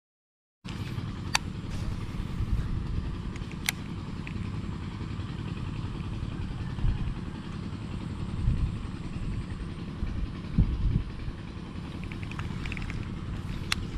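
Wind buffeting the microphone outdoors, a steady low rumble that starts after a brief silence, with a few sharp clicks scattered through it.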